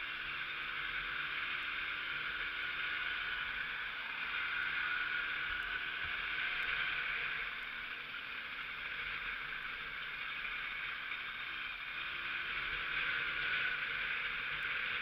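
Hercules MX1 moped's small two-stroke engine running under way, its faint engine note rising and falling a little, under a steady rush of wind and road noise.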